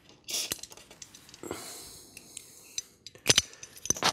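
Aerosol contact-cleaner spray hissing into the rotary switches and potentiometers of an old electronic instrument, a short puff and then a longer spray of about a second. Near the end come a few sharp metallic clicks.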